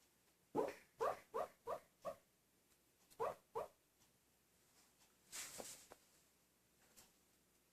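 Italian Greyhound barking in its sleep while dreaming: a quick run of five short, soft, muffled woofs, then two more about a second later. A short breathy puff of air follows past the middle.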